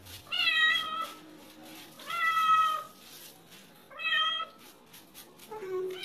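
Wet domestic cat meowing repeatedly while being shampooed: three long meows about two seconds apart, then a lower-pitched call beginning near the end.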